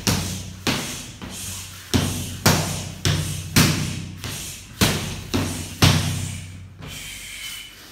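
Wooden staff striking a freestanding punching dummy in quick succession, about two sharp hits a second, each with a short ringing tail; the strikes stop near the end. A steady low hum runs underneath.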